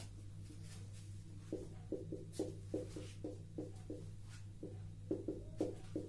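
Marker drawing on a whiteboard: a run of short strokes, about two or three a second, starting about a second and a half in, over a steady low hum.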